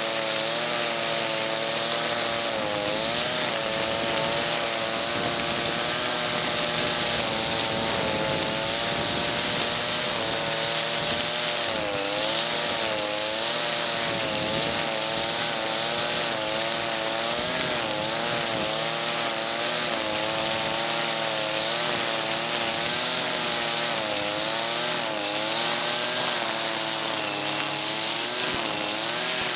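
Husqvarna 323R two-stroke brush cutter running steadily at high revs, held below full throttle, while cutting tall, dense dandelions mixed with couch grass. Its pitch dips briefly under the load of the thick growth every few seconds and picks back up, over a steady whirring hiss from the cutting head.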